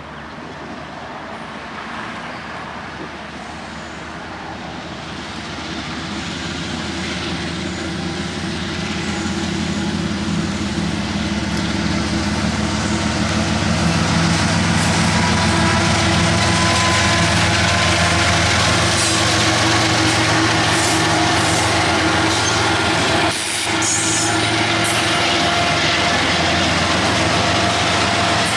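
A diesel-hauled freight train approaching and passing. The locomotives' engines grow steadily louder over the first dozen seconds, then the rolling cars keep up a loud, steady rumble with scattered sharp clicks from wheels and rail.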